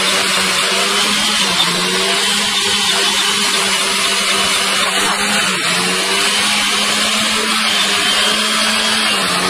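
A motor running at a steady speed: a constant hum under a loud hiss, the hum dipping slightly in pitch a few times.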